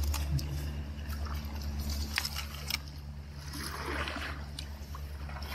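Shallow tide-pool water trickling and sloshing around a hand that holds a small fish under the surface, with a few faint clicks. The water noise swells about three and a half seconds in as the hand moves, over a steady low rumble.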